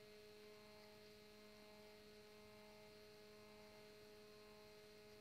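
Printrbot Simple's Z-axis stepper motor running as it drives the axis 10 mm up at slow speed: a faint, steady, even-pitched whine.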